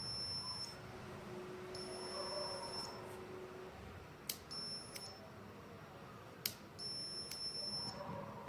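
Buzzer on an Arduino Uno doorbell circuit sounding a string of high-pitched beeps, each about a second long, with one shorter. A few sharp clicks fall between the later beeps.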